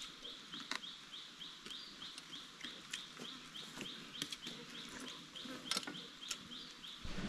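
Faint high-pitched chirping repeated steadily about three times a second, with a few sharp clicks and knocks standing out above it.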